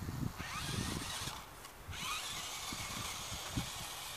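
Small electric motor of a 1:18 HB P1801 RC rock crawler whining as the car drives over sand. The pitch rises and falls with the throttle, and the whine cuts out briefly about a second and a half in before picking up again.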